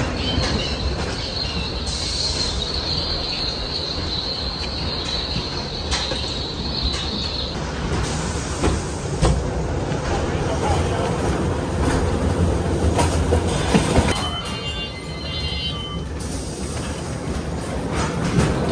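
Roller-coaster car rolling on its steel track through dark-ride tunnels, heard from on board: a steady rumble of wheels on rails. A high, steady wheel squeal runs through the first seven seconds or so.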